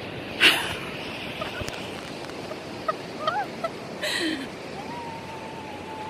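Steady outdoor wash of wind and surf. A sharp loud cry or bump comes about half a second in, short high squeal-like voice sounds follow around three to four seconds, and a long steady high note sounds near the end.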